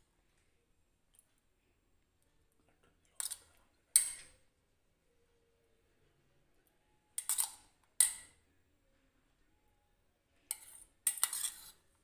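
A metal spoon clinking and scraping against a bowl while scooping chopped vegetables: three pairs of short clattering strikes, a few seconds apart.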